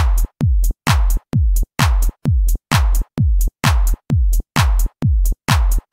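Electronic dance music driven by a deep drum-machine kick on every beat, about two a second, each hit carrying a bright hiss, with the sound dropping away between hits.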